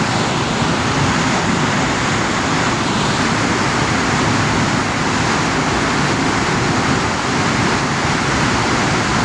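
Steady rushing of river water, an even continuous noise.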